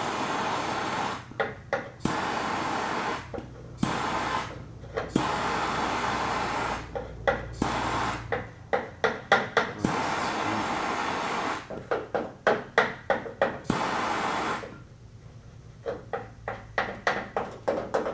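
Hand tool work on lead body solder on a car's sheet-metal trunk panel: stretches of steady hiss broken by runs of quick scraping strokes, about three a second, with a short quiet pause near the end.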